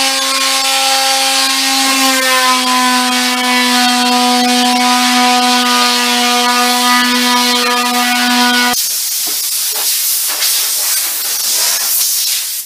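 Electric orbital sander running steadily on a cherry tabletop, its motor giving a constant whine, switched off sharply about nine seconds in. A steady blast of air hissing follows for the last few seconds as grit and dust are blown off the sanded surface.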